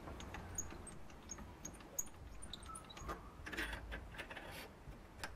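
Light metallic clinks and taps of tools and parts being handled at a small metal lathe, with one sharper click near the end. A faint low hum runs underneath.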